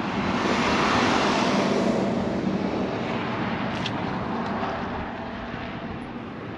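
A passing vehicle: a rushing noise that swells to a peak about a second in and then slowly fades.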